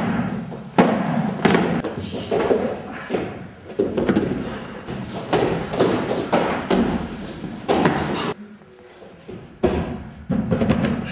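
Punches landing in a boxing workout: a run of dull thuds, about one a second, with a short pause about eight seconds in before they start again.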